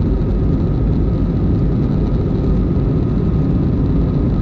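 Steady cabin noise of an Airbus A321-211 in flight after takeoff: a deep, even rumble from its CFM56 jet engines and the airflow, with a faint steady whine above it.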